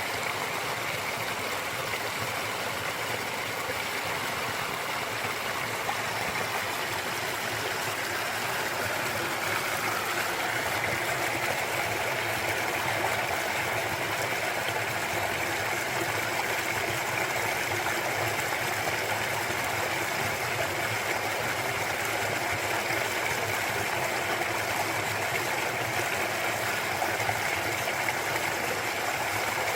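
Mountain valley stream flowing over rocks, a steady rush and babble of water that grows a little fuller about a third of the way in.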